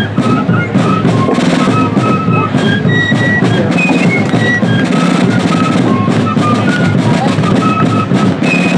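Fife and drum corps playing: a shrill fife melody of short held notes over rapid rope-tension snare drumming with rolls and bass drum beats.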